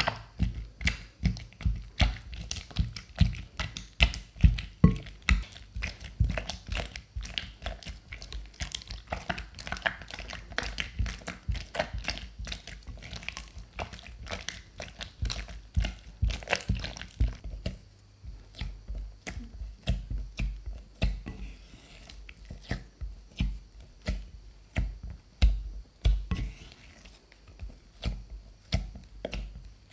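Silicone spatula beating egg into cooked churro dough in a glass bowl: quick, repeated sticky slaps and squelches, several a second. The strokes turn duller about two-thirds of the way through as the dough comes together smooth.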